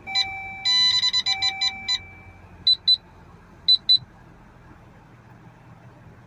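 Electronic warning chimes from a 2019 Dodge Journey's dashboard. A steady two-note tone sounds with a quick run of high beeps for about two seconds, then two pairs of short high beeps come about a second apart.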